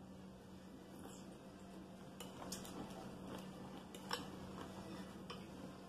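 Metal fork clicking and scraping against a salad bowl as it picks up salad: a few light clicks starting about two seconds in, the loudest about four seconds in.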